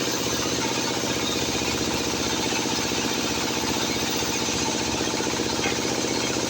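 Sawmill machinery running steadily with an even engine-like hum.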